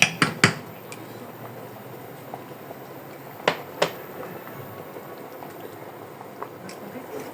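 A pot of chicken pelau with rice and coconut milk bubbling as it cooks down, with a few sharp knocks at the start and two more about halfway through.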